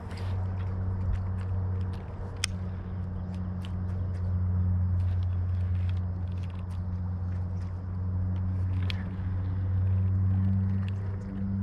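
Bow-mounted electric trolling motor running with a steady low hum, under scattered small clicks and ticks from rod and reel handling.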